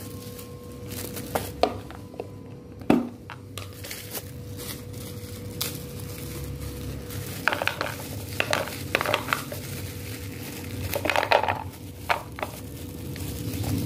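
Plastic bag crinkling and candlenuts rattling as they are tipped into a plastic food container, in clusters of crackly rustles over the second half. Earlier come a few sharp knocks of things set down on a tiled floor, the loudest about three seconds in.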